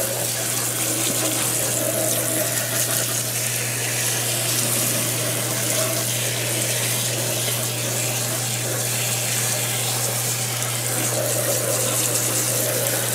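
Hot water spraying steadily from a hand-held hose nozzle onto a computer motherboard, rinsing off the suds, with a steady low hum underneath.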